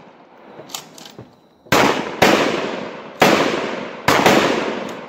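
Gunshots from a neighbouring shooter's firearm at an open-air range: six sharp shots from a little under two seconds in, irregularly spaced, each with a long echoing tail.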